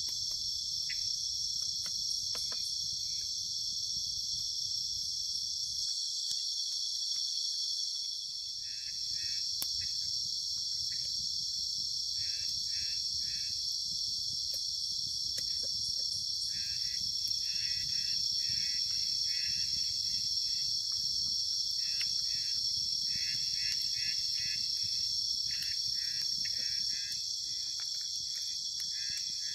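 Night-time chorus of crickets: a steady high-pitched shrill, with groups of short pulsed trills from another caller coming in more often in the second half, and a few faint clicks.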